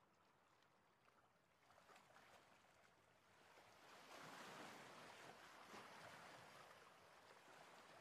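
Near silence: only a faint, even rushing hiss that swells over the first few seconds and then holds steady.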